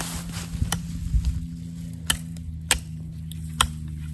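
Small hand axe chopping at the branches of a small evergreen tree: four sharp, irregularly spaced chops. A steady low hum runs underneath.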